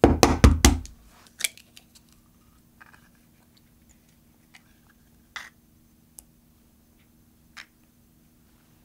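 A raw egg cracked against the rim of a small glass bowl: a quick run of sharp knocks and cracks in the first second, the loudest part. Then a few single light clicks of the eggshell as the halves are pulled apart and the yolk is passed between them to separate it from the white.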